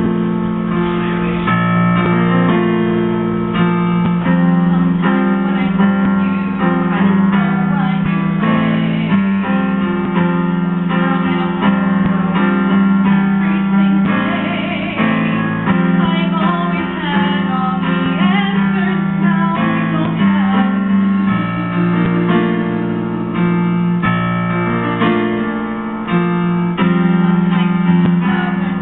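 Live piano accompaniment to a musical-theatre song: steady chords and melody notes.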